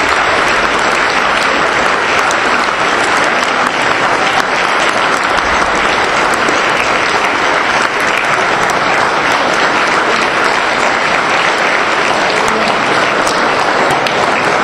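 Large audience applauding steadily, dense clapping that holds at the same level throughout.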